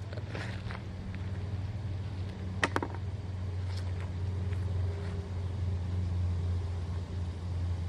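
Steady low hum of an engine, with one sharp click a little under three seconds in.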